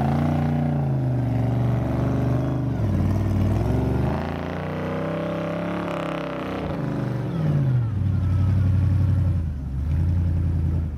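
Off-road buggy engine revving hard under load on a steep sand climb, its pitch rising and falling several times as the throttle is worked, over a steadier low engine hum.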